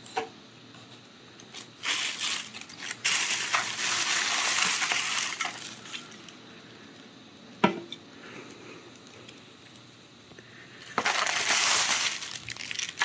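Takeout food packaging being opened and handled: two spells of rustling, the first about two seconds in and the second near the end, with one sharp click in between.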